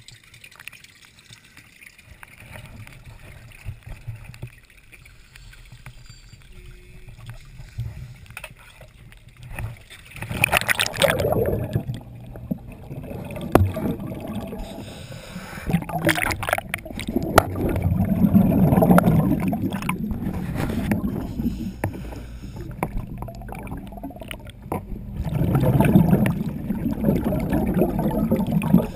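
Diver's exhaled air bubbles gurgling past the underwater camera in bursts every several seconds, after a quieter first stretch of about ten seconds.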